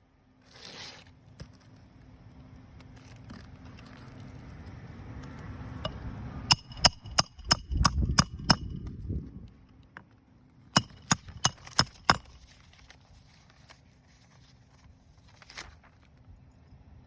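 Hammer striking roofing nails into a roof shingle: a run of about seven quick, ringing metal strikes a little past the middle, then after a short pause about five more.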